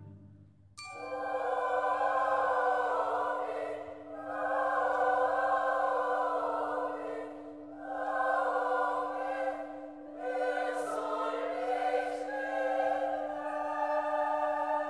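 Choir singing in long phrases with short breaks between them, over a steady held low note, starting about a second in.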